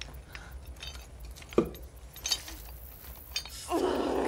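Metallic clinks and a sharp clack from a steel bear trap being worked at on a caught foot, in the show's soundtrack. A louder sustained sound starts near the end.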